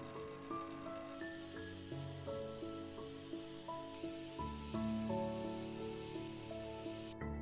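Angle grinder with an abrasive disc grinding the edge of a thin stainless steel disc, a steady hiss that starts about a second in and cuts off suddenly near the end. Background music plays throughout.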